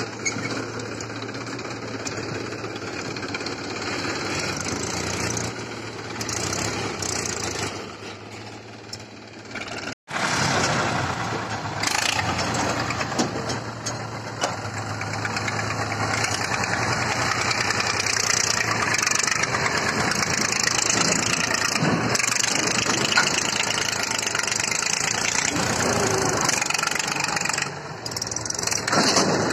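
Diesel tractor engines running under load as they pull a loaded trolley: first a New Holland 3600, then, after a cut about ten seconds in, an Eicher 380, which is louder.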